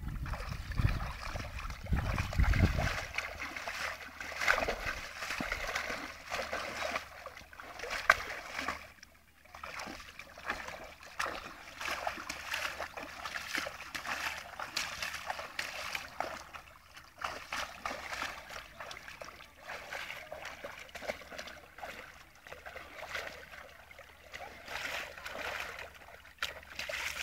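A dog wading and pawing in shallow water, making irregular splashing throughout. A low rumble sits under it for the first few seconds.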